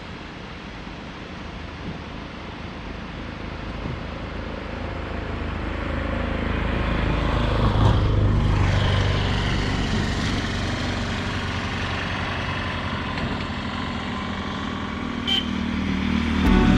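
A motor vehicle's engine running, with road noise. It grows louder over the first half and then holds steady as a low hum.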